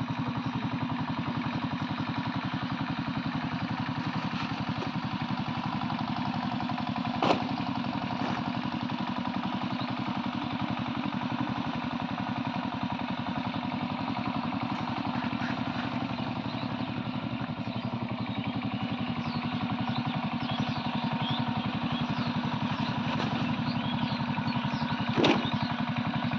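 A small engine running steadily with a fast, even pulse. Two sharp knocks stand out, about seven seconds in and near the end.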